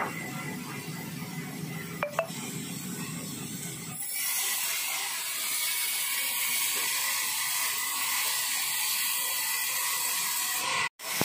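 Large vertical band saw running, with a couple of sharp knocks about two seconds in. About four seconds in, the blade cuts into a rubber wood log and a steady high hiss of sawing takes over. The sound drops out for an instant near the end.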